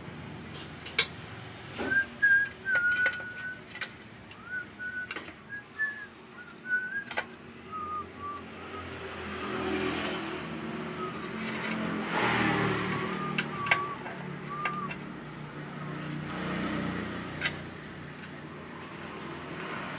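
A person whistling a wandering tune in short notes, mixed with sharp metallic clicks and taps from handling a motorcycle monoshock spring in a plate-and-rod spring compressor. A broad rumble swells up around the middle and fades again.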